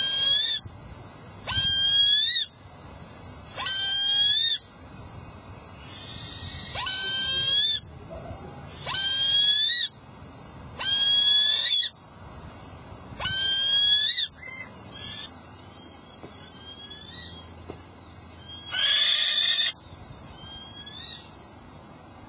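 A hawk on its perch calling over and over: a loud, high, screaming call about a second long that rises and wavers in pitch, repeated roughly every two seconds, with a few fainter calls near the end.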